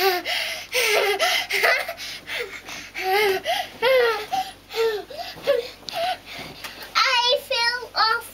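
A toddler's high voice chanting in short sing-song phrases, with giggling and a few shrill squeals near the end.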